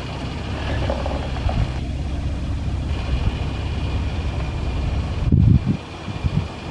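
Jeep driving on a rough dirt road: a steady low engine and road rumble, with a louder low thump about five seconds in, after which it runs quieter.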